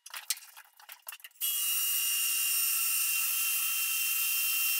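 A few clicks and knocks as the plastic sprinkler-valve top is handled in a bench vise, then from about a second and a half in a DeWalt cordless drill runs with a steady whine, boring a half-inch hole through the centre of the plastic.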